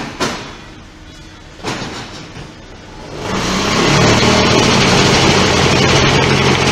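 QT6-15 concrete block-making machine working: a couple of metal clanks near the start and another a second or so later, then from about three seconds in a loud steady mechanical drone with a low hum that sets in and holds.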